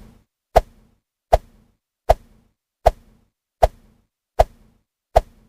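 An edited-in sound effect: a short, sharp knock with a brief ringing tone, repeated seven times at an even pace of about one every three-quarters of a second.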